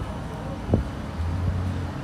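Urbos 100 light rail tram moving past, a low rumble with one knock about a third of the way in and a low steady hum in the second half.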